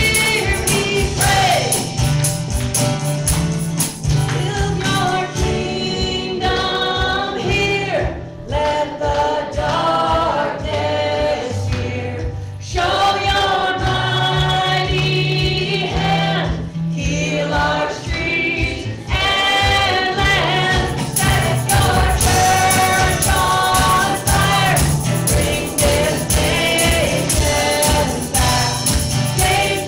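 Gospel worship song: a choir singing over an instrumental backing with a steady bass line and percussion.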